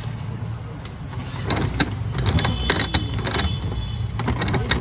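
Metal hand tools clinking and knocking against a Volkswagen Vento steering rack as pliers grip its end and a large socket is held on it, a scatter of sharp clicks starting about a second and a half in, some with a short metallic ring. A steady low hum sits underneath.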